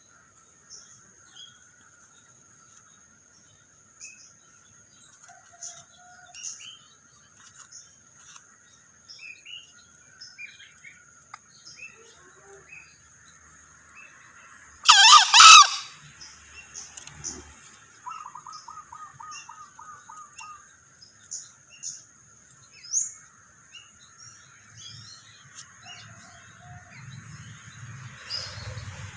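Male green junglefowl giving one short, loud two-part crow about halfway through. Small birds chirp throughout over a steady high whine.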